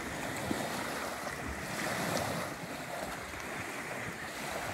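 Waves washing on a shore, a steady rushing noise.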